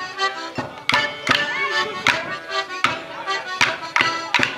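Morris dance tune played on accordion, with the dancers' wooden sticks clacking together in time, a sharp clack about every three quarters of a second.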